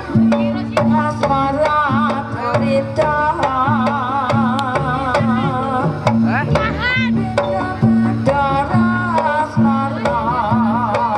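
Live kuda kepang ensemble music: drums keep a steady beat under a wavering, vibrato-laden melody line, with a quick rising slide in the melody about six seconds in.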